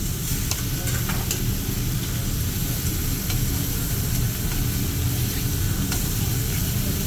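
Food sizzling on a hibachi teppanyaki griddle, with a few sharp metal clicks, mostly in the first second and a half, over a steady low hum.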